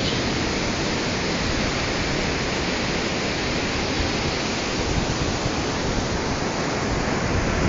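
Steady rush of wind on a phone's microphone, with the sound of the sea's surf in it: an even hiss with a low, fluttering rumble that holds level throughout.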